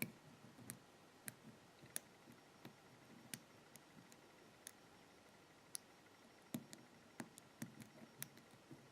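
Faint, irregular metallic clicks from picking an American pin-tumbler padlock: the serrated pins clicking as the pick lifts them under tension.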